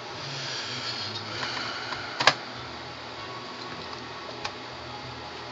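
Light handling sounds of a 2.5-inch SSD being fitted in a laptop's drive bay: a soft scraping over the first two seconds, one sharp click a little over two seconds in, and a couple of faint ticks later.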